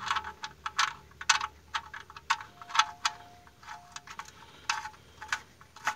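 Light, irregular metallic clicks and ticks, a few to a second, as a car's oil-pan drain bolt is turned in by hand.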